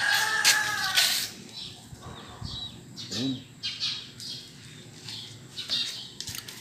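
A rooster crowing. Its call runs out about a second in and is followed by quieter scattered short sounds.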